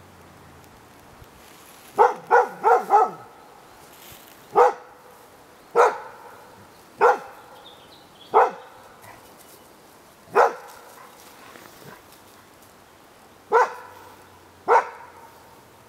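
Nova Scotia Duck Tolling Retriever barking at the white-draped 'ghost' figures of a temperament test: a quick run of four barks about two seconds in, then single sharp barks every second or two.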